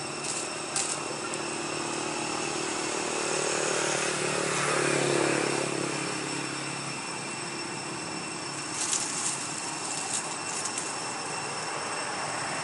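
A distant engine drone that swells about halfway through and then fades. Steady high-pitched tones run underneath, and a few sharp clicks come near the end.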